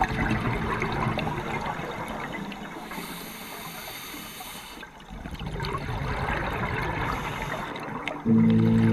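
Scuba regulator exhaust bubbles rushing and gurgling underwater, two long exhalations with a short break between them. Music comes in near the end.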